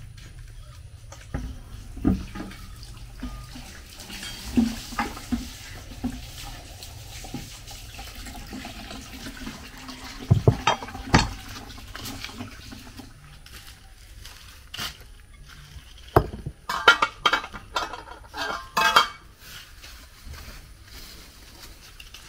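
Liquid sloshing and splashing while juice is made, with irregular knocks and clatters of kitchenware and a thicker run of clattering near the end.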